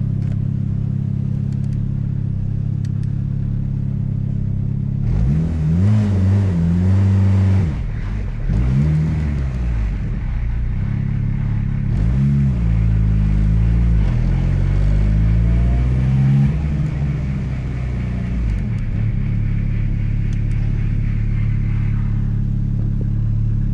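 Turbocharged Honda D16 four-cylinder idling. In the middle its revs rise and fall four times in short throttle blips. It responds only sluggishly to the throttle because the throttle position sensor is unplugged and the ECU gets no TPS reading.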